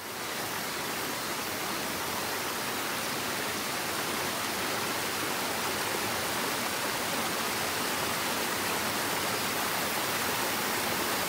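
Shallow mountain stream rushing and splashing over rocks and a small cascade: a steady, even rush of water that fades in at the start.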